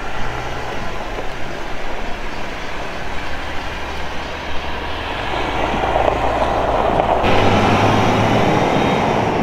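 Road traffic on a sealed highway: a steady rush of tyres and engines from passing cars, growing louder toward its peak in the last few seconds.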